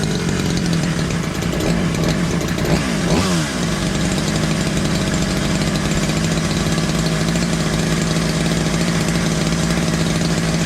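Ported Poulan Predator 2150 two-stroke chainsaw with a custom welded exhaust, idling after carburetor tuning. About three seconds in it is blipped once, revving up and falling back, then it idles steadily and shuts off at the very end.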